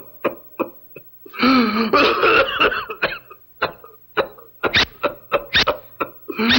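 Cartoon monkey's fake coughing fit, voiced by an actor: a string of short sharp coughs, with a longer strained, wavering vocal stretch about a second in. The monkey is putting on the coughing fit as part of the act.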